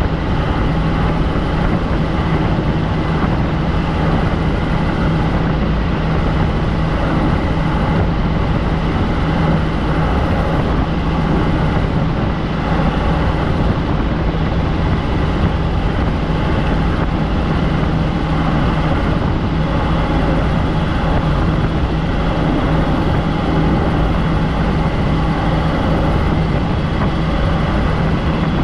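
Helicopter in flight: steady, loud engine and rotor noise with a constant low hum that does not change.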